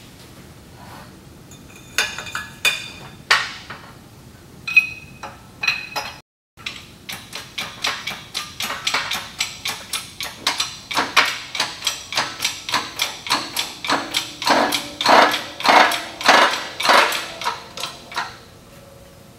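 Sharp metal-on-metal knocks at a hydraulic shop press: a few scattered, ringing strikes at first, then a steady run of about three a second that grows louder and stops shortly before the end.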